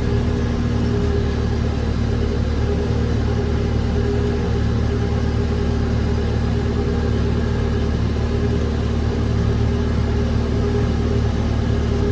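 Tractor engine running steadily at an even speed, a constant low hum with a few steady tones.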